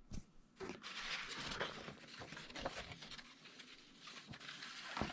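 Rustling, scraping and light knocks of paper and packaging being handled and slid about, with a few short clicks.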